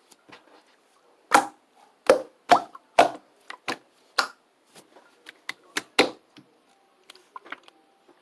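A series of about a dozen sharp knocks and clicks at an uneven pace, loudest near the start and fading into faint scattered clicks near the end.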